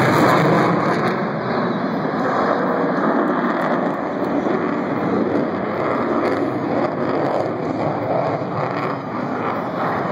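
Lockheed Martin F-22 Raptor's twin Pratt & Whitney F119 turbofan engines heard from far off as a steady rushing jet noise, easing slightly about a second in.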